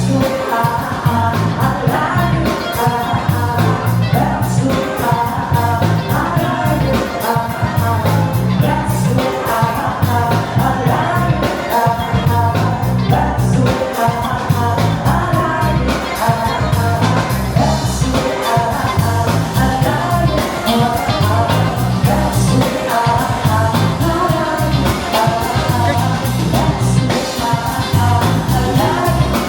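A song with a singer over a full band, with a steady, driving beat.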